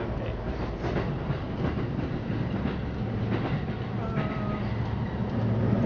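Commuter train running, heard from inside the carriage: a steady low rumble and hum, with occasional wheel clicks over the rail joints.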